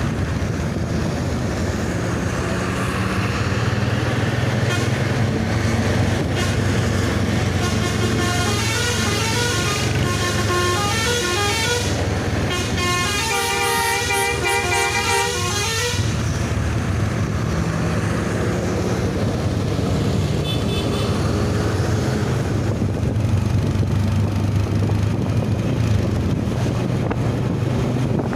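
Tour bus's telolet horn, a multi-tone musical horn, playing a quick tune of short notes stepping up and down for several seconds midway, over the steady low drone of the bus engine.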